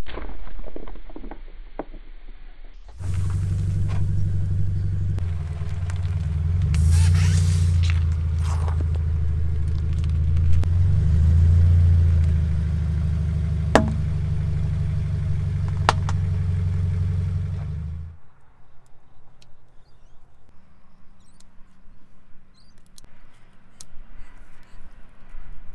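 Car tyre rolling slowly over small objects on tarmac. The car's engine runs steadily close by through most of it, with a burst of crackling and a few sharp pops as things give way under the tyre. About two thirds of the way in the engine sound stops, leaving only faint clicks.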